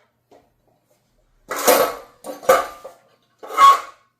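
Loose metal bits clattering in three short bursts, each about half a second, as a magnetic sweeper is run over them again.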